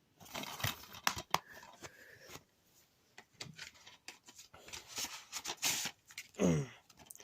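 Plastic DVD case being handled and opened: a string of irregular clicks, snaps and short scratchy rustles as the case and disc are moved about. A brief falling voice-like sound comes near the end.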